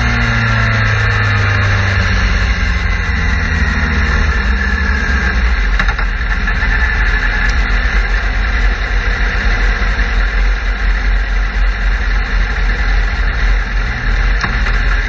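Suzuki GSX-R sport bike's inline-four engine rolling off, its pitch falling over the first few seconds, then running steadily at low revs. Wind rushes over the bike-mounted microphone.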